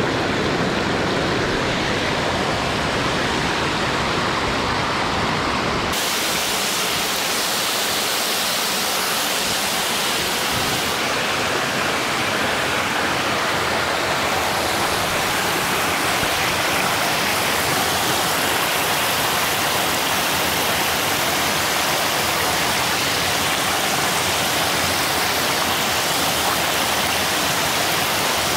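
Rushing creek water, a loud steady rush. About six seconds in, it changes to a brighter, hissier rush with less low rumble.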